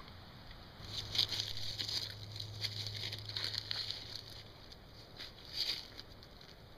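Dry leaves and brush crackling and rustling in irregular bursts, starting about a second in, with a low steady hum under the first few seconds. Near the end, a dog's paws step through the dry leaves.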